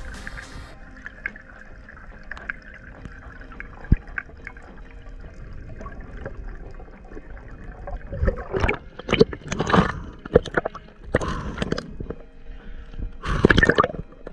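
Underwater sound of the sea: a faint steady hiss with a single click, then from about eight seconds in, irregular bursts of splashing and gurgling water as the diver nears and breaks the surface.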